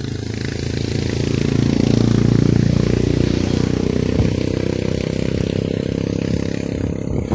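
A motor vehicle's engine running close by, growing louder over the first two seconds and then staying loud.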